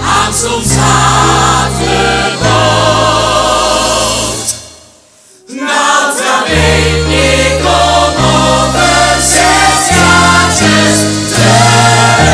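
A musical-theatre ensemble singing in chorus over orchestral accompaniment with held bass notes. About four and a half seconds in, the music drops away almost to silence; a second later a new passage with full chorus starts.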